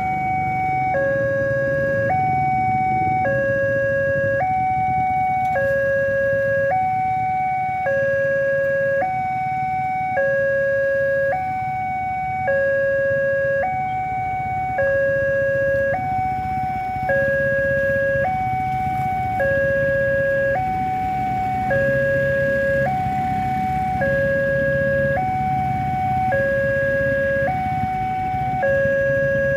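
Railway level-crossing warning alarm sounding: an electronic two-tone signal that swaps between a lower and a higher note about every second and repeats steadily. It means the barrier is down and a train is approaching.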